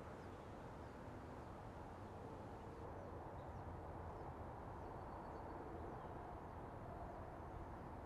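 Quiet outdoor ambience: a faint, steady low rumble with a few faint, short high chirps from distant birds.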